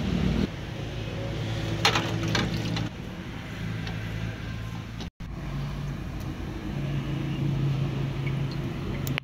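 A steady low mechanical hum, with a few light metallic clicks about two seconds in as small diesel injector parts are handled. The sound drops out for an instant a little after halfway.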